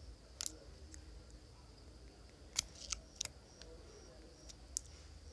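Several sharp faint clicks at irregular spacing, three close together in the middle, over a steady low hum.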